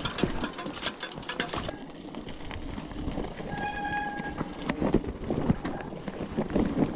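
Splashing and sloshing through water on a flooded trail, with many small splashes and clicks over a low rumble. About four seconds in, a short high whine sounds for about half a second.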